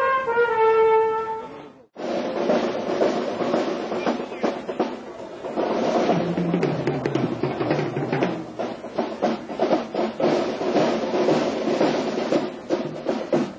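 A brass band playing: brass instruments hold and slide down a note for about the first two seconds, then the sound cuts out abruptly and a long, busy drum passage follows.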